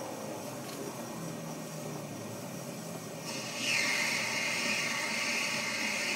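WABECO lathe running, then the tool starts cutting the acetal (POM) rod a little over halfway through, adding a louder steady hiss as a continuous stringy plastic chip peels off.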